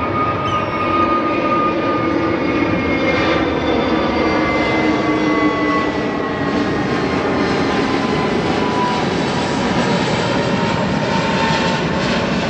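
Airbus A321neo's CFM LEAP-1A turbofans running at takeoff thrust as the airliner climbs out: steady jet noise with thin whining tones that slowly fall in pitch as it draws away.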